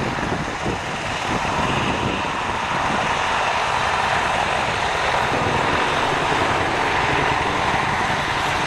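Bell AH-1 Cobra helicopter flying aerobatics: its two-blade main rotor and turbine engine give a loud, steady, dense noise with a fast, uneven chop underneath.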